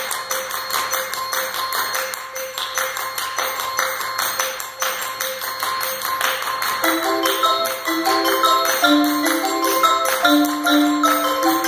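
Percussion ensemble playing: a dense run of rapid strikes over held ringing tones. About seven seconds in, mallet keyboard instruments enter with a melodic line of separate pitched notes.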